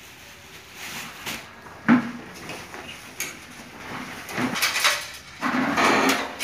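Handling noises as a grey AC wet-service cover bag is lifted up a stepladder to a ceiling cassette unit: a sharp knock about two seconds in, then bursts of rustling in the second half.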